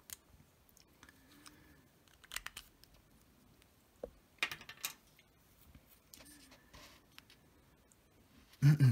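Handling noise: scattered crisp rustles and clicks of fingers moving a paper sheet, with a louder low thump near the end.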